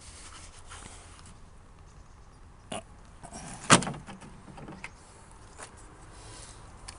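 A few short, sharp clicks and knocks over a faint steady background, the loudest a single sharp click a little before the middle.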